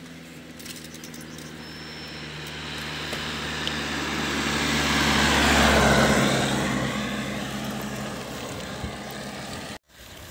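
A small hatchback car drives past, its engine and tyre noise swelling steadily to a peak about six seconds in and then fading away. The sound breaks off abruptly near the end.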